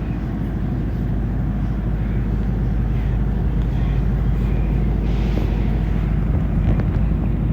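A steady low rumble, like a running engine or machinery, with a few faint ticks.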